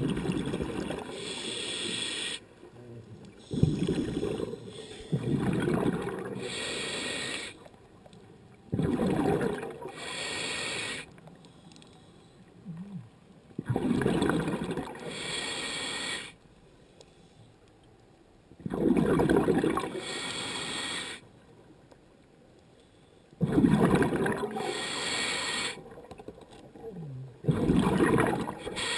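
A scuba diver breathing through a regulator, each breath in and out followed by a rush of exhaled bubbles. There is one breath about every five seconds, with quiet gaps between them.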